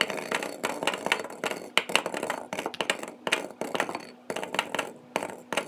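Rubber bouncy balls dropping into a clear plastic bowl, clattering against the bowl and against each other in a rapid, irregular stream of clicks and knocks.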